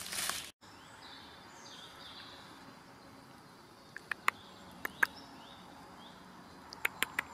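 Faint woodland ambience with distant birds chirping, broken by a few sharp ticks about four to five seconds in and again near the end.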